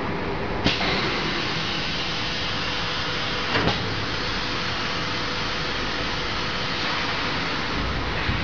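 Deep vacuum forming machine running with a steady hiss. A sharp clack comes just under a second in, and a quick double knock about three and a half seconds in.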